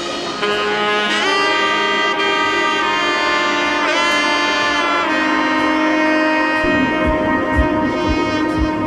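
Background music: a sustained melodic lead line with a note that bends in pitch about four seconds in, and a low beat that comes in near the end.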